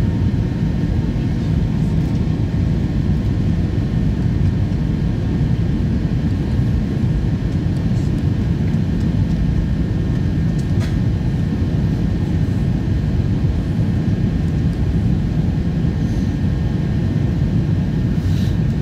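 Steady cabin noise of a jet airliner heard from a passenger seat: a continuous low rumble of engines and airflow, with a faint steady whine above it.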